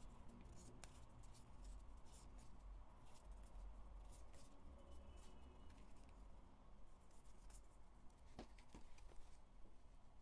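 Near silence with faint, scattered soft clicks and rustles of small matte photocards being flipped through and handled.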